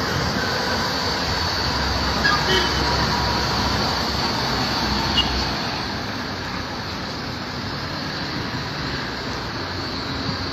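Automatic car wash running: a steady mechanical whir with a faint high whine and a low rumble, easing slightly about six seconds in, with a few light clicks.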